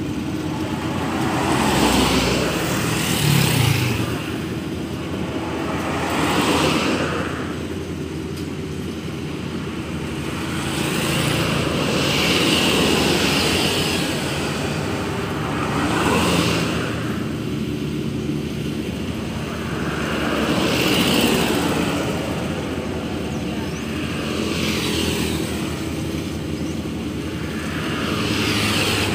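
Rice harvesting machine's engine running steadily while cutting rice, its noise swelling and easing every few seconds.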